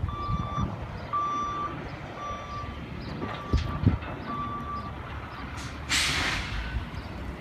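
Reversing alarm on a 1998 International 4900 dump truck beeping about once a second, five times, over the low running of its DT466E inline-six diesel as it backs up. The beeping stops, and about six seconds in there is a loud burst of air hiss, the truck's air brakes.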